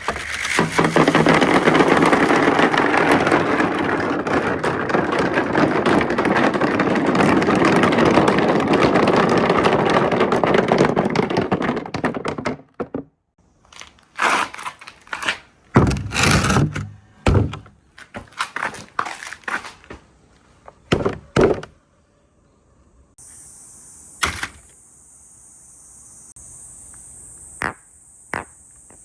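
Marbles rolling down a handmade marble-run track, a continuous rolling noise for about twelve seconds, then scattered clicks and knocks as marbles drop and strike the course. Crickets chirp steadily through the last few seconds.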